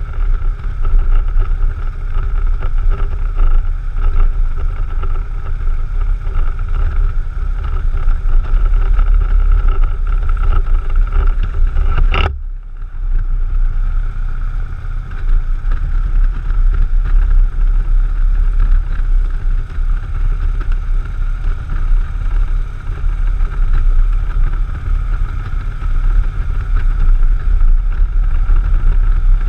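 Touring motorcycle riding at highway speed: steady engine drone under a heavy rumble of wind on the microphone. About twelve seconds in there is one sharp click and the sound briefly drops before carrying on.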